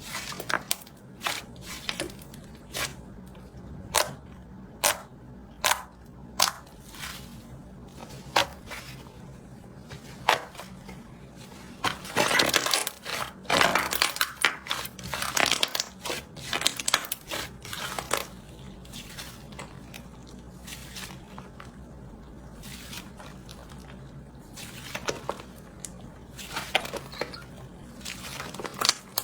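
Slime being squeezed and pressed by hand, making sharp popping clicks every second or so, with a longer spell of dense crackling midway through.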